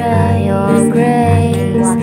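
Music from a slow song: a held, gently gliding melody line over steady accompaniment.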